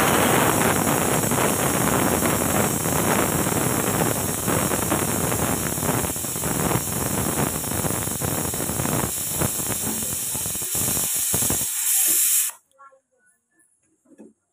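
Pressure cooker releasing steam in a loud hiss that grows sputtering in its second half, then stops abruptly near the end.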